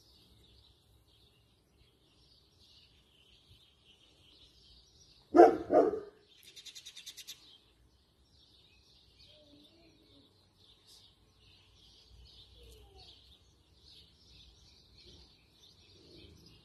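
A dog barks twice in quick succession about five seconds in. A short, rapid, high-pitched rattling call follows at once, over faint, steady bird chirping.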